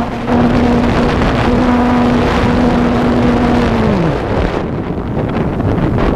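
Strong wind buffeting the microphone. Under it, a steady motor hum sinks in pitch and fades out about four seconds in, as if the motor is throttled down.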